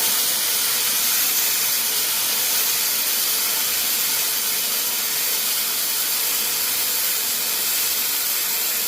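Welding arc of a homemade 12-volt battery-powered welder burning one long continuous bead: a loud, even crackling hiss that starts abruptly and holds steady.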